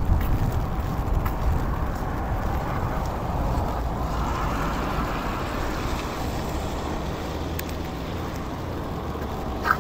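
Rainy street ambience: steady rain with a low traffic rumble, swelling for a few seconds in the middle as a vehicle passes on the wet road. A short sharp click comes near the end.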